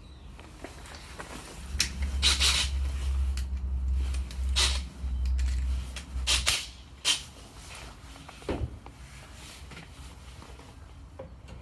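Power drill with a Phillips bit running at low speed for about five seconds, driving hinge screws into the cabinet. Sharp clicks and knocks of handling the drill, bit and hinge come before and after.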